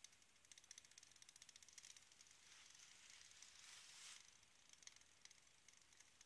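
Very faint quick ticking and crackling from a homemade beer-can alcohol stove as it burns and heats up, with a soft hiss that swells about four seconds in as its side burner jets begin to catch.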